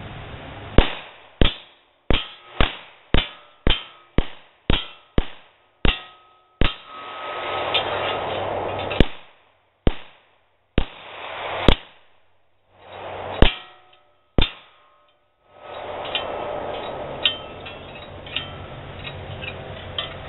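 9mm Glock 19 pistol fired at steel plate targets: a fast string of about a dozen shots, then half a dozen slower ones, each hit on the steel ringing out in a metallic clang.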